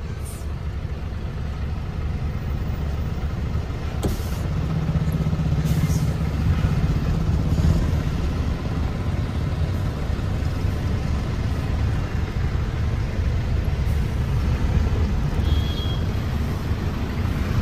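Heavy truck's engine running steadily, a dense low rumble that grows a little louder over the first few seconds.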